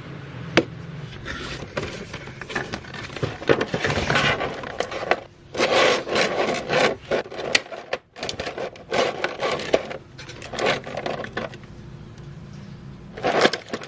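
Packaging of a Nendoroid figure being opened and handled: irregular scraping and rubbing of cardboard and plastic, with a few sharp clicks and louder bursts of handling.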